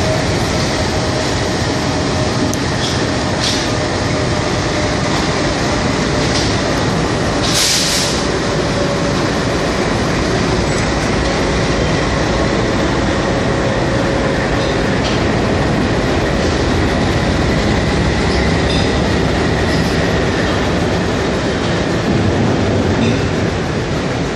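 Passenger train rolling slowly into a station, heard from on board: a steady rumble of wheels on rail with a few clicks over rail joints and a faint steady squeal. A short hiss sounds about eight seconds in.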